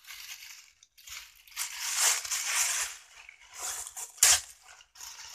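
Tissue paper crinkling and rustling in several bursts as it is pulled out and handled, with a sharp crackle about four seconds in.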